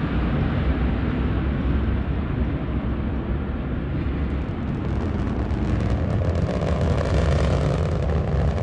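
Antares rocket's first stage, two RD-181 engines at full thrust during ascent, heard as a steady deep rumble. Crackling in the rumble grows from about halfway through.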